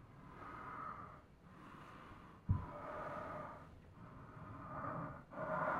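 A man breathing heavily in and out, a rasping breath about every second, with a single low thump about two and a half seconds in.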